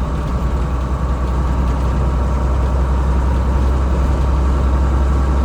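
GMC cab-over truck's engine idling steadily with a deep low hum.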